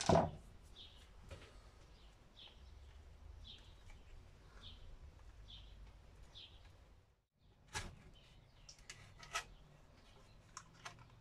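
Handling of an electric trolling motor's plastic control head as it is taken apart: a knock at the start and several sharp clicks in the second half. A bird chirps about once a second through the first half.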